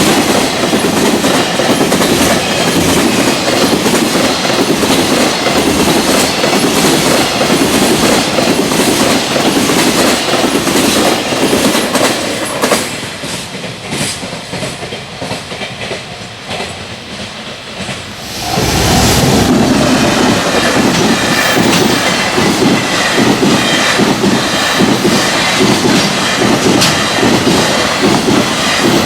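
Freight train passing at speed, its wheels clattering rhythmically over the rail joints. The clatter drops to a quieter rumble for about six seconds in the middle, then comes back loud all at once.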